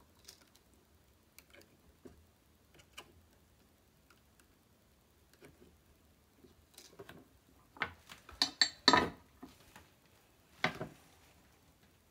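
Faint light ticks of a soldering iron and wire being worked against a guitar 5-way switch's lugs, then a few louder knocks and clatters of tools being handled and set down on a wooden workbench, about eight to eleven seconds in.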